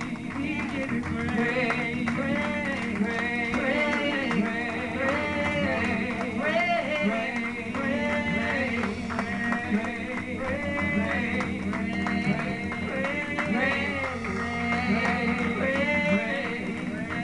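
Live church worship music: a singer leads a melody over steady band accompaniment, with the room's reverberation.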